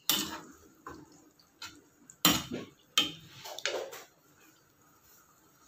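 A metal spoon clinking and knocking against a saucepan while stirring a thick tomato stew: about half a dozen sharp clatters over the first four seconds, the loudest a little after two and three seconds in.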